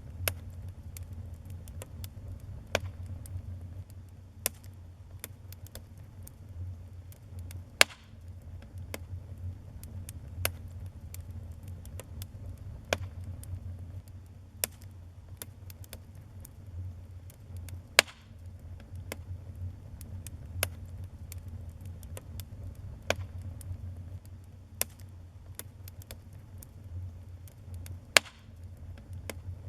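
Wood fire burning in a fireplace, crackling with irregular sharp pops over a steady low rumble; a few pops stand out much louder than the rest.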